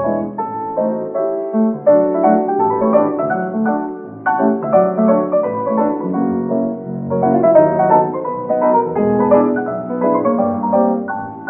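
Solo piano playing a lively popular tune, a steady repeated bass and chords under the melody.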